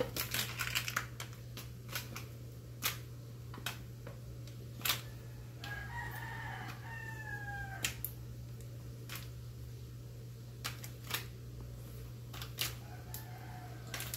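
Sharp taps and clicks of a kitten's paws and a stick toy striking a tiled floor, scattered irregularly, over a steady low hum. About six seconds in, a rooster crows once, a call of about two seconds that falls in pitch.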